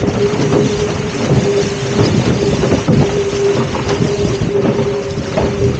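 Water rushing past the hull of a Musto Performance Skiff sailing downwind under spinnaker, mixed with wind on the microphone and a steady hum held throughout. Small knocks and slaps from the hull and rigging come through the rush.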